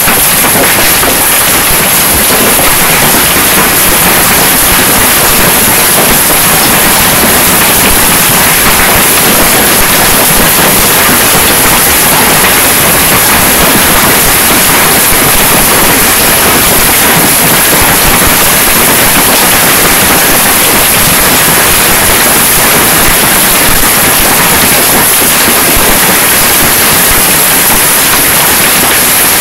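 Heavy hailstorm: a dense, loud, unbroken rush of hailstones striking the ground and tree leaves.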